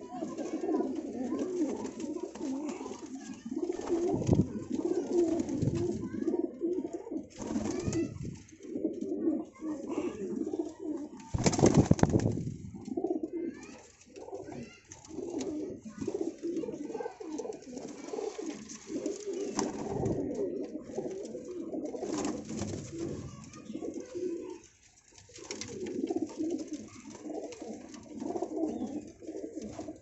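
Many domestic pigeons cooing together in a loft, a continuous low warbling chorus. Now and then there are short clatters, and one loud burst of rustling noise comes about twelve seconds in.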